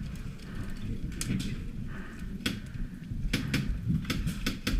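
A run of sharp clicks and knocks at uneven intervals, about eight in all, over a low rumble of movement.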